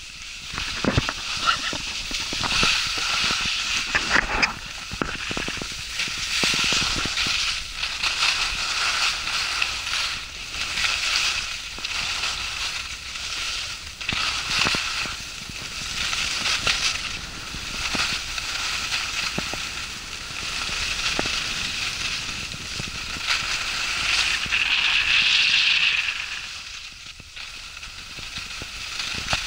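Skis sliding and scraping over packed snow: a rough hiss that swells and fades every couple of seconds with the turns.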